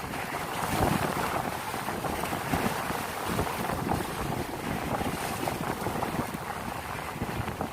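Wind buffeting the microphone over a rough sea, with waves sloshing and splashing in uneven surges.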